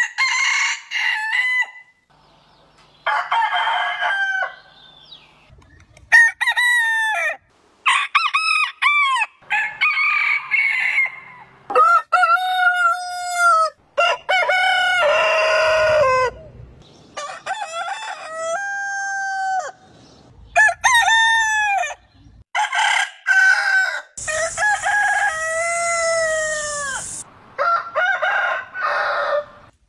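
Roosters crowing one after another, about a dozen crows from different birds, each a cock-a-doodle-doo that rises and then falls in pitch; most last a second or two, and one near the end is drawn out for about three seconds.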